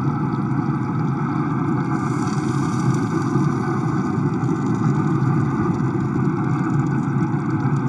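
Steady, even whir of a pellet grill's fan running while the food cooks.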